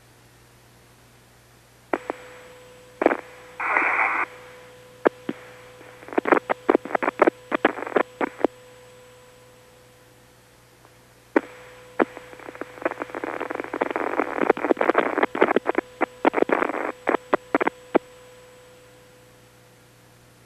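Space Shuttle Columbia's air-to-ground radio link breaking up into crackling static and rapid clicks, in two spells a few seconds apart, with a faint steady tone under them and a low hum and hiss between. No voice comes through: the signal from the orbiter is dropping out during re-entry.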